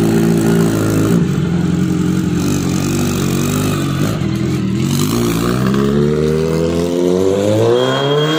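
Kawasaki Z900's inline-four running through a newly fitted SC Project full-system exhaust, loud and steady as the bike moves off, then rising steadily in pitch over the last three seconds as it accelerates away.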